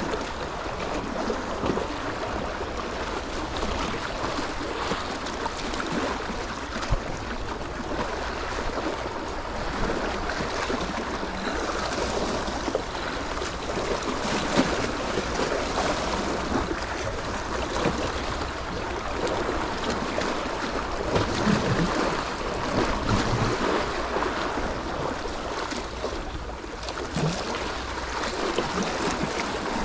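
Steady wash and splash of sea water, a continuous rushing noise with small irregular splashes.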